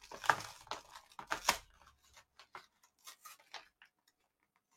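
Packaging of a Pokémon card duo pack being torn open: irregular crinkling and tearing, busiest in the first couple of seconds, then a few scattered crackles.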